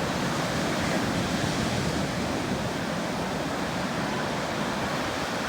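Ocean surf washing onto a sandy beach: a steady wash of noise, with wind buffeting the microphone.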